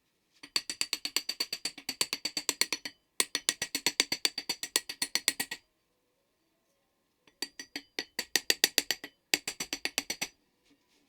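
Rapid sharp tapping or clicking, about eight strikes a second, in three runs of two to three seconds with short pauses between.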